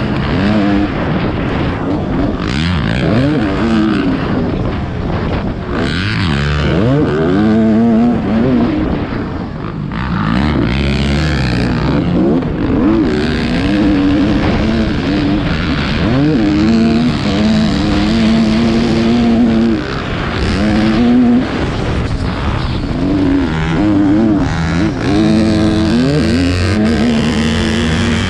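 Suzuki RM250 two-stroke single-cylinder motocross engine under hard riding, its pitch rising and falling again and again as the throttle is opened and shut and the gears are worked.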